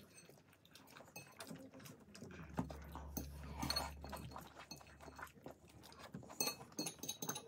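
Eating sounds: chewing and mouth smacks with light clinks of dishes and cutlery, as a run of small quick clicks. A low hum runs for a few seconds in the middle.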